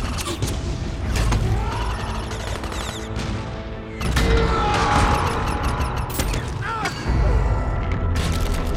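Movie battle sound effects over background music: explosions boom heavily at the start, about four seconds in and again about seven seconds in, amid mechanical whirring and clanking from the giant robots.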